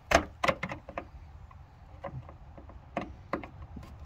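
Scattered sharp metallic clicks and scrapes of a screwdriver on the setscrew of a ground lug in a metal electrical disconnect box, tightening down a ground wire, over a low steady hum.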